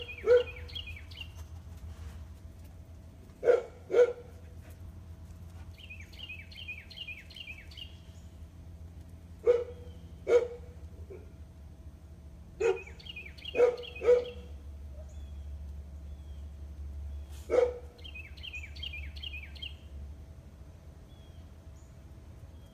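A dog barking, about nine sharp barks spread out singly and in pairs. Between the barks a bird sings runs of quick, high, falling chirps.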